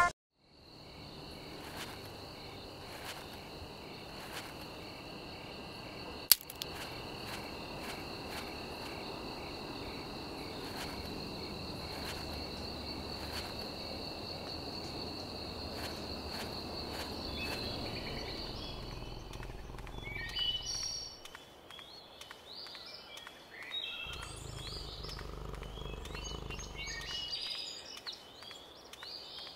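Outdoor nature ambience: insects trilling steadily on a high pitch over a low rumble, giving way after about 19 seconds to birds chirping in short rising and falling calls. One sharp click about six seconds in.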